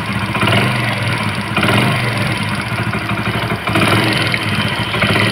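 Hero Honda Passion Plus's single-cylinder four-stroke engine idling steadily on its first run after a rebuild.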